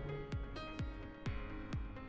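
Electronic background music with a steady kick-drum beat about twice a second under held synth tones.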